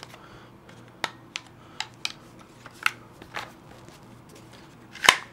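Scattered light clicks and knocks from a CAA Roni C-G2 polymer carbine conversion kit being handled and turned over in the hands, with one louder click near the end.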